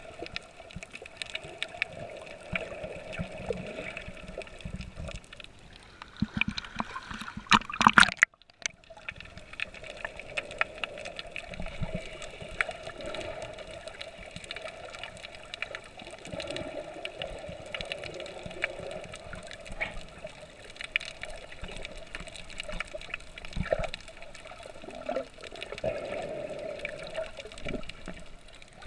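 Underwater water noise heard through a camera's waterproof housing: a muffled wash of moving water and bubbles with scattered small clicks. About eight seconds in comes a louder splashing burst that cuts off suddenly.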